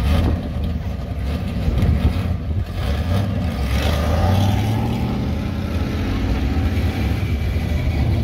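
A 1955 Chevrolet's engine rumbling as the car pulls away, rising a little in pitch about halfway through as it accelerates.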